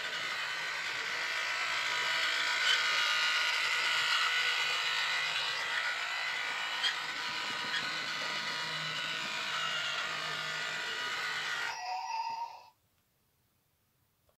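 Lego Duplo toy train running around its plastic track: a steady whirring with a few sharp clicks. It stops about twelve seconds in.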